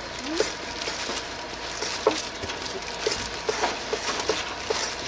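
Irregular light knocks and clinks, a few a second at times, over a steady background hiss.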